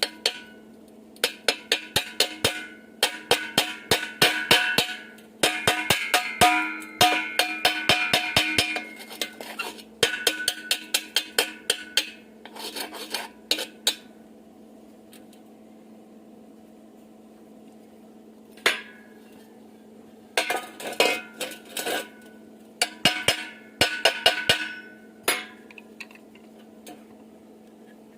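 Light hammer strikes on thin steel angle iron, in quick runs of about four a second with a ringing metallic note, coming in several bursts separated by pauses, the longest pause in the middle.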